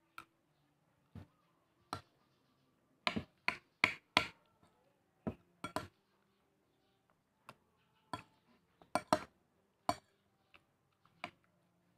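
Metal spoon clinking and scraping against a plate while a man eats rice: a string of short, sharp, unevenly spaced clicks, with a cluster about three to four seconds in and another around nine seconds.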